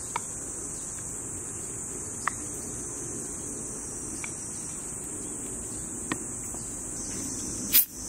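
Steady high-pitched drone of insects, with a few light clicks of a wooden spoon against a small aluminium pot as pineapple chunks are scooped out. A sharper knock near the end, the loudest sound, comes as the pot is set down.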